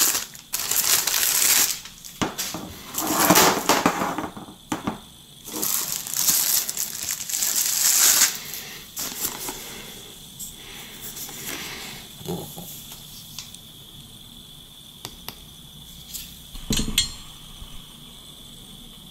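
Thin clear plastic packaging bag crinkling and rustling in loud bursts as an item is pulled out of it, for about the first eight seconds. After that, quieter handling with a few light clicks, and a short rustle near the end.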